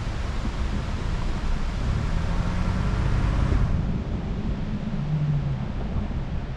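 Ford Bronco being driven: a steady rumble of engine and tyres with wind noise on the microphone. The higher hiss drops away a little past the middle.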